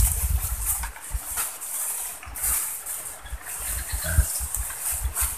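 Wind buffeting the microphone in uneven low rumbling gusts, with light crinkling and rustling from a plastic bag being handled.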